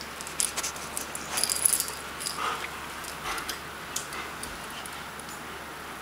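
Metal tags on a dog's collar jingling and clinking as the dog moves and lies down on carpet, most busily in the first two seconds, then a few scattered clinks.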